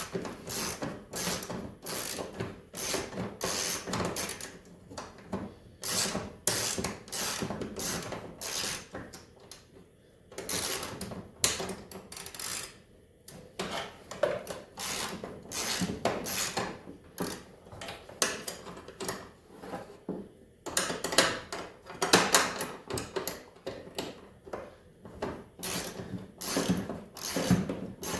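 Ratchet wrench clicking in quick runs of strokes while bolts are worked loose, broken by a few short pauses.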